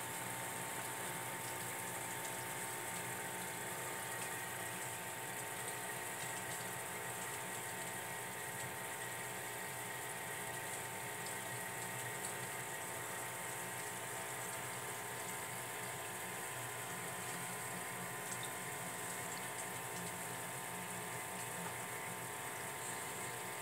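Aquarium filter running: a steady hum with several tones under a constant trickling of water.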